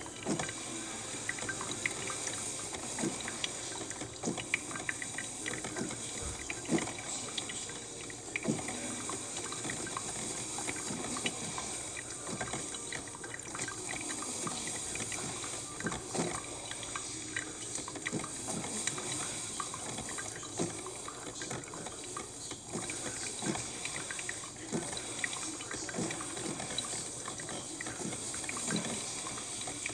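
Cuisinart drip coffee maker brewing: hot water hissing and gurgling through the machine and running into the carafe, with many small irregular pops and spits.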